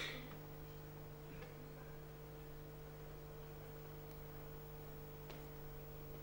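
Steady low electrical mains hum on a quiet recording, with a short hiss right at the start and a couple of faint clicks.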